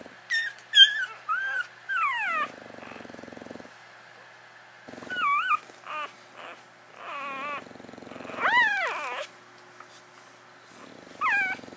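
Old English Bulldogs whimpering: bouts of short, high squeals that slide down in pitch, with low buzzing grunts between them.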